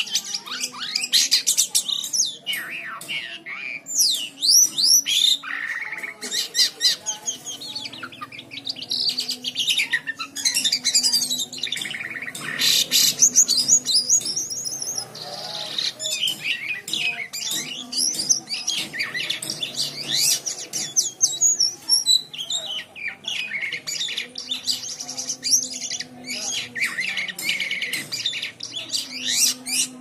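Caged jalak kapas (white-shouldered starling) singing non-stop: a long, fast run of chattering notes and quick up-and-down whistles, with only brief breaks.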